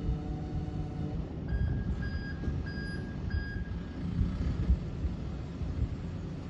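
Front-loader garbage truck's reversing alarm beeping four times, evenly spaced, starting about a second and a half in, over the steady rumble of its diesel engine. A steady whine cuts off about a second in.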